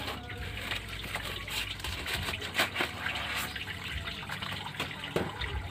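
Running water splashing and trickling, with a few sharp knocks, the loudest about two and a half seconds in and near the end.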